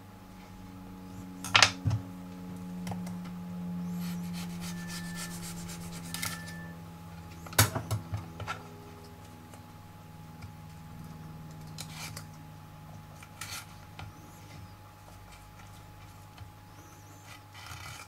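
Small knife cutting and scraping watermelon rind on a wooden chopping board: a handful of sharp taps and clicks of the blade on the board, the loudest pair near the start and a short cluster about halfway, over a low steady hum.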